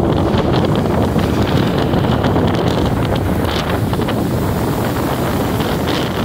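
Steady rushing wind buffeting the microphone held out of a moving car's window, over the car's road noise.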